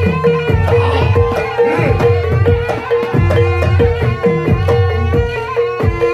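Javanese barongan accompaniment music: hand drums beating a driving rhythm under a short pitched note repeated about three times a second, with higher melodic lines over them.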